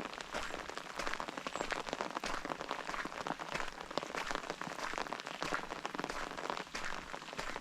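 Steady rain falling, with many close drops ticking in quick irregular succession.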